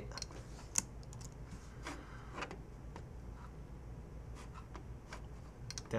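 Computer mouse clicking faintly, about half a dozen scattered clicks, over a steady low hum.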